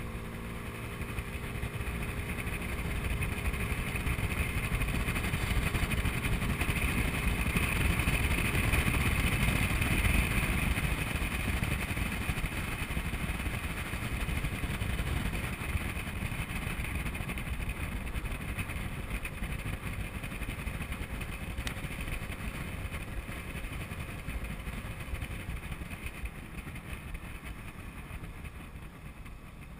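Honda Ruckus 49cc four-stroke scooter running on the move, its engine mixed with a steady rush of wind and road noise. It grows louder about a third of the way in, then eases off toward the end as the scooter slows.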